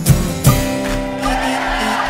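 Acoustic guitar strumming the closing chords of the song: two strokes about half a second apart, then a chord left ringing.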